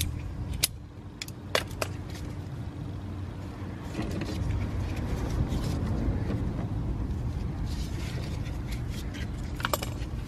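Sharp metallic clicks and light scraping as an air line and its fitting are handled and reconnected on a Mercedes Airmatic air suspension compressor, over a steady low rumble. A few clicks come in the first two seconds and another cluster near the end.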